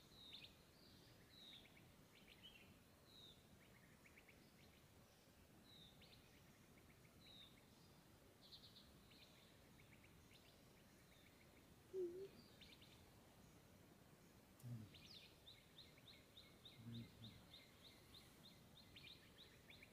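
Faint bird calls: scattered high chirps and short trills, then a fast run of repeated high notes, about four a second, over the last few seconds. A brief low knock about twelve seconds in is the loudest sound, with a few softer low sounds after it.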